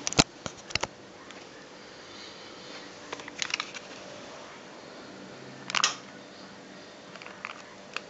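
Handling noise from a handheld camcorder being moved about: scattered sharp clicks and knocks, the loudest just after the start, and a short rough scrape about six seconds in, over a steady faint hum.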